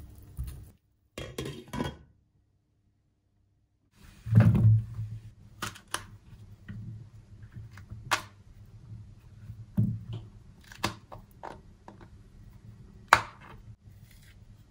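Kitchen utensils and cookware being handled: scattered knocks and clinks, the loudest about four and a half seconds in and again near the end, over a steady low hum. The sound cuts out completely for about two seconds near the start.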